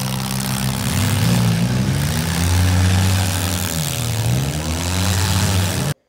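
Demolition derby car engines running and revving in the arena, their pitch rising and falling several times, with a dip and climb near the end.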